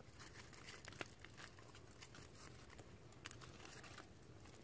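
Near silence with a few faint, sharp crackles and clicks.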